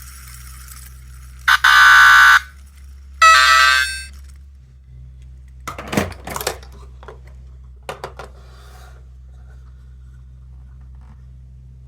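Small electronic sound toy from a capsule-toy machine sounding two short, loud buzzer-like electronic tones about a second apart, followed by a few plastic clicks from handling it.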